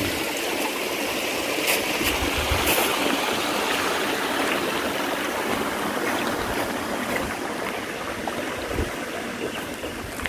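A stream flowing: a steady rush of running water.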